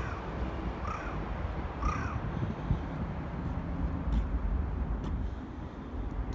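A crow cawing three times, about one call a second, at the start, over a steady low rumble.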